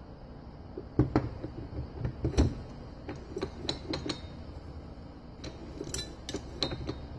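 Steel transmission parts clinking and knocking as the internal gear of a 1955 Oldsmobile Hydra-Matic is slid down the output shaft over the planet-gear carrier and turned by hand to seat. The loudest knocks come in the first couple of seconds, followed by lighter ringing clinks.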